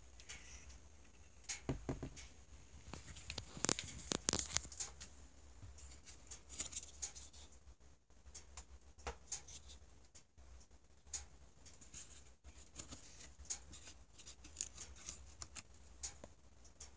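Faint scattered clicks and rustles of a knife set being handled in its box packaging, as the peeler and a knife are lifted from the plastic insert, busiest a few seconds in, over a low steady hum.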